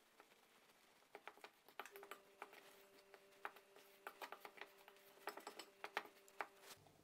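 Metal fork clicking and scraping against a glass bowl in quick, irregular, faint taps, stirring flour and water into a rough dough.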